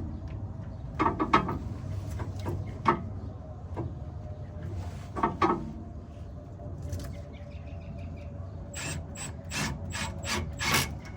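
Hand tools working on a car's sway bar link hardware: scattered metal clinks and knocks, then a quicker run of sharp clicks near the end.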